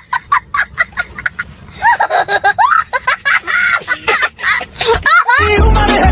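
A young child laughing hard in rapid, high-pitched, cackling bursts. Music with a steady beat cuts in near the end.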